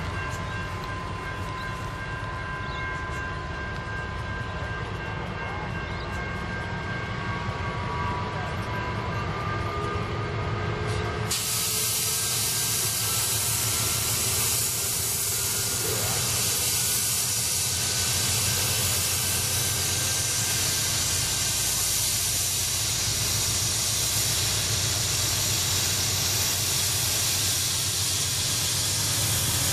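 NR class GE diesel-electric locomotives hauling a freight train up a grade with only two of the four locomotives powered: a low engine drone with slowly rising whines as the train gathers speed. About a third of the way in, a loud steady hiss starts abruptly and largely covers the engines.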